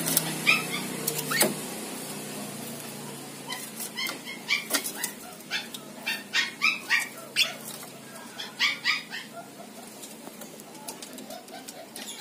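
Javan mynas calling: a run of short, pitched call notes, a few a second, starting about three and a half seconds in and dying away a few seconds later. Two sharp clicks come before the calls.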